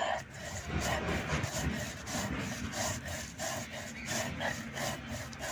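A stone roller scrapes back and forth on a flat stone grinding slab (shil-nora), crushing dried red chillies and black cumin seeds, with a gritty rubbing at about three strokes a second.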